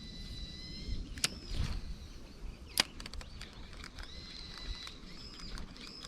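A bird giving long, even whistled calls, several in a row, with two sharp clicks in between.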